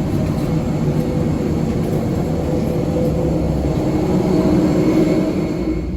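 Loud, steady mechanical rumble with a faint high whine running through it.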